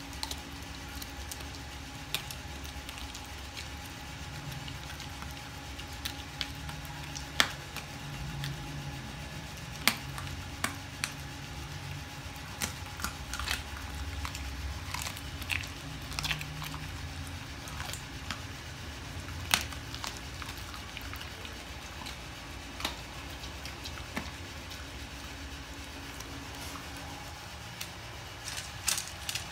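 Belgian Malinois chewing raw chicken feet and a chicken head: wet chewing with scattered sharp crunches of bone.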